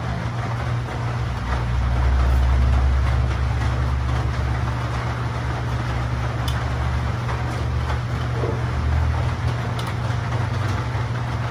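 A steady low machine hum with an even rushing noise over it, swelling slightly a couple of seconds in.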